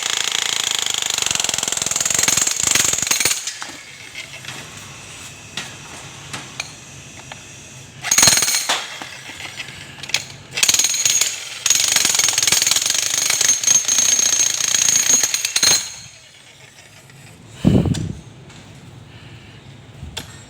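Makita electric demolition hammer chiselling concrete, run in bursts: about three and a half seconds at the start, a brief burst a little past the middle, then about five seconds more before it stops. A single dull thump comes near the end.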